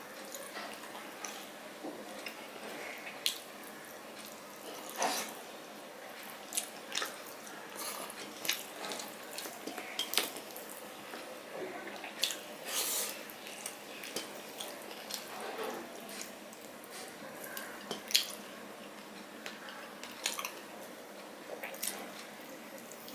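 Soft, wet eating sounds from a man eating rice and hilsa fish curry by hand. Irregular short smacks and clicks of chewing and lips, with the occasional light scrape of fingers mixing rice on a steel plate.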